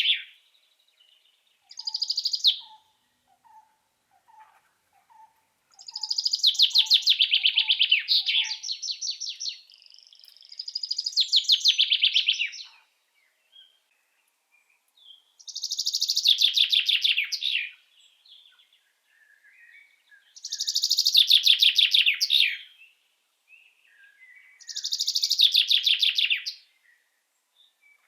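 A songbird singing a high, rapidly trilled song of about two to three seconds, repeated every four to five seconds. A second bird gives soft, lower short notes about twice a second during the first several seconds.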